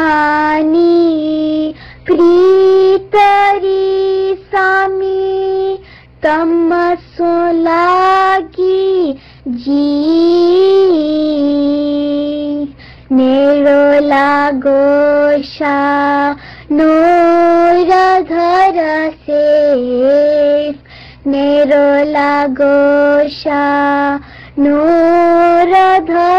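A single high voice singing an Ismaili ginan, a devotional hymn, in held melodic phrases with short breaks between them.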